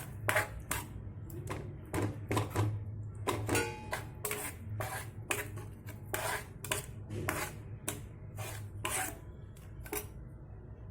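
A spoon stirring and scraping against a kadai, mixing a thick rice, jaggery, milk and grated coconut mixture in irregular strokes about twice a second, over a low steady hum.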